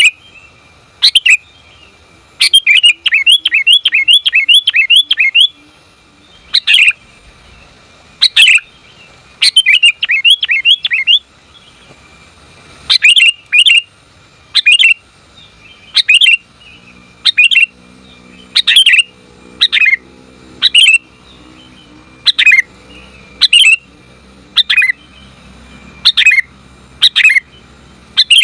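Sooty-headed bulbul giving sharp, repeated call notes that slide down in pitch, mostly one or two at a time every second or so, with two quick runs of about four notes a second near the start and around ten seconds in. It is offered as a female's call to draw a male into answering.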